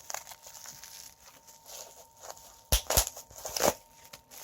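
Packaging handled while a small boxed item is opened: faint rustling, then two sharp clicks close together about three quarters of the way through, followed by a brief rustle.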